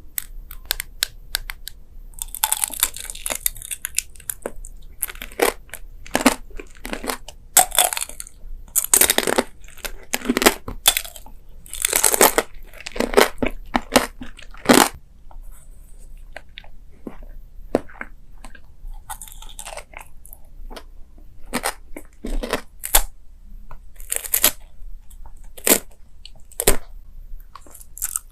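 Close-up eating sounds: a string of crunchy bites and chewing, irregular and sharp, with a few longer noisy stretches.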